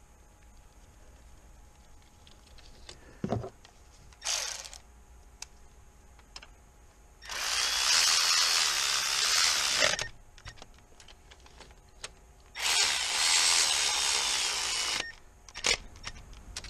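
A handheld power tool runs in two bursts of about two and a half seconds each, with a few short knocks and clicks in between.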